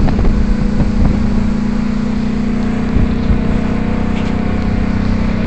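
Ford 6.2 L gas V8 in a 2011 F350 under heavy load, pulling a 15,000 lb trailer up a steep 18% grade. Its engine note is a steady low drone that holds its pitch.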